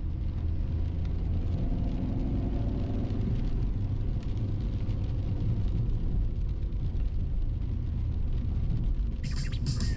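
Inside a hybrid-turbo tuned Volkswagen Polo cruising on a wet road: a steady low engine and road rumble with tyres on the wet surface, the engine note rising briefly about two seconds in.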